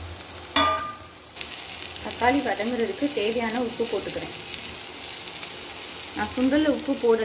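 Shallots, tomatoes and garlic sizzling in oil in a steel pan, stirred with a perforated steel ladle. A short, loud ringing clink about half a second in.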